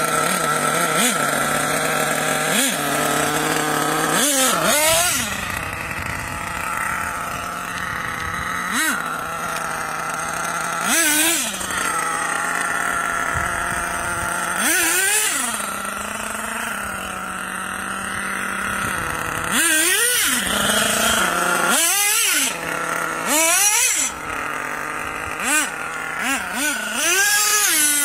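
HPI Savage's LRP .32 big-block two-stroke nitro engine with a tuned pipe, idling and revving up repeatedly in sharp throttle blips that rise and fall in pitch as the truck drives. The owner says a defective O-ring on the high-speed needle was letting the mixture lean itself out.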